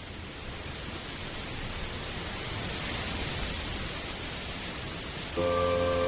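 An even rushing noise, like a steady hiss, swells up gradually. About five seconds in, music starts with held chords and comes in louder than the noise.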